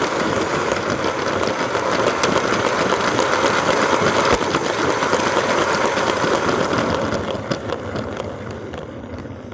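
Lego 9V train's motor whirring and its plastic wheels rattling along the track, with rapid clicks, heard from a camera riding on the train. The noise fades over the last couple of seconds.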